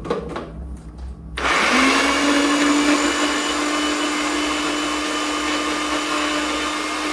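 Low-priced electric mixer grinder (mixie) switched on about a second and a half in, its motor spinning up with a short rising whine and then running steadily with a high, even hum as it grinds tomatoes and green chillies into a paste.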